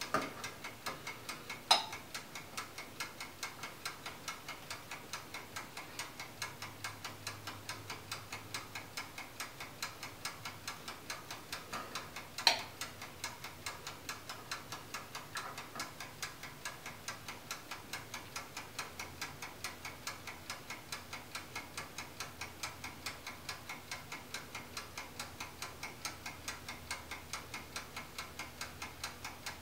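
Reflow oven ticking steadily, about three ticks a second, with two sharper clicks, one about two seconds in and one near the middle.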